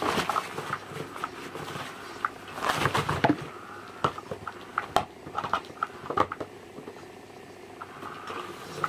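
A plastic bag rustling and crinkling as cats paw, tug and pounce on it, with scattered light clicks and knocks, the longest burst of rustling about three seconds in.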